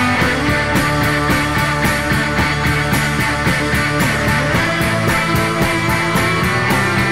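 Rock music with a fast, steady drum beat.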